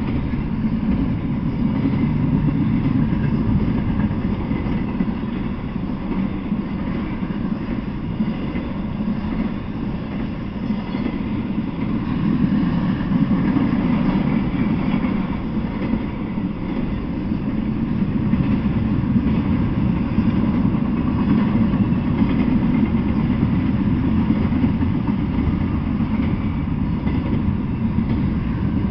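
Double-stack intermodal freight cars rolling past on the rails, a steady low rolling noise with no horn.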